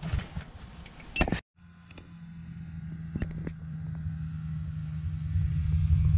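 After a few faint knocks and an abrupt cut, an engine runs steadily with a low rumble that grows gradually louder. Two sharp clicks come about three seconds in.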